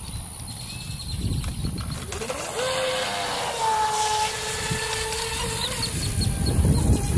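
Electric motor of an Atomik Barbwire XL RC race boat whining at speed, its pitch rising about two and a half seconds in, holding steady and fading near six seconds as the boat runs away. A low rumbling noise lies underneath.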